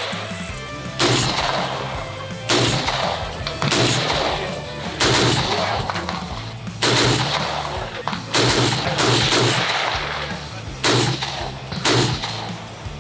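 Gunfire on a shooting range: about nine single shots, each with a ringing tail, spaced roughly a second to a second and a half apart, with music underneath.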